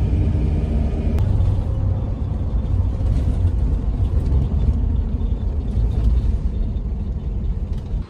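A motor vehicle running, a steady low engine and road rumble.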